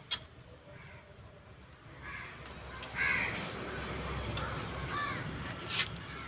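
Crows cawing, a few harsh calls with the loudest about three seconds in, and a single sharp click near the start.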